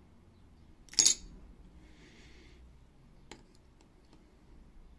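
A hard-drive platter, handled with steel tweezers, gives one sharp metallic clink with a short ring about a second in as it is set onto the spindle. A few faint light clicks of the tweezers at the hub follow later.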